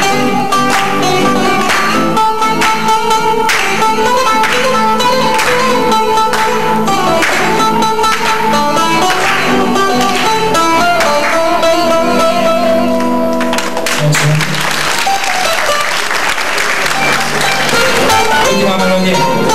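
Bouzouki and electric guitar playing an instrumental melody of plucked notes. About two-thirds of the way through, audience applause breaks out over the playing for several seconds while the instruments keep going.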